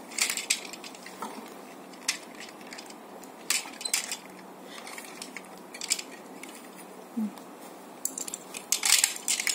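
Hard plastic parts of a Tobot Magma 6 combining toy robot being handled and fitted together: scattered light clicks and knocks, with a small flurry about halfway and another near the end.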